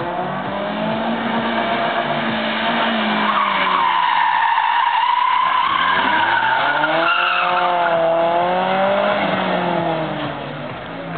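BMW car driven hard, its engine revs rising and falling while the tyres squeal and skid. It swells to its loudest in the middle and fades near the end.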